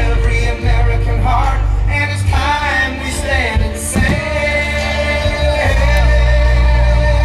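Music with a singer over a strong, steady bass.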